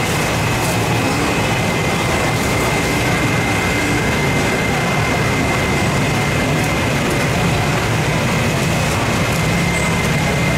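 Steady mechanical hum and rush, with a thin high whine held over it and no breaks.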